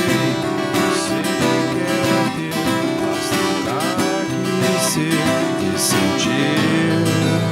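Two acoustic guitars playing together, picked notes over strummed chords, with a few notes sliding in pitch.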